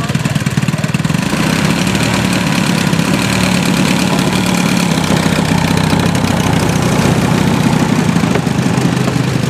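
Engine of a large RC scale model Zlin Z 242 L running steadily while the model taxies on grass, its propeller turning.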